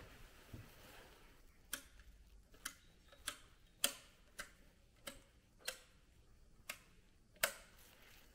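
Slow footsteps on a hard church floor: about nine sharp, clicking steps at an uneven walking pace, starting a couple of seconds in.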